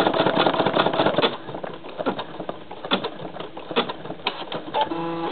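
Embroidery machine stitching icon embroidery at high speed, a fast even clatter of the needle for about a second, then slowing to scattered clicks and knocks. A short pitched tone sounds near the end.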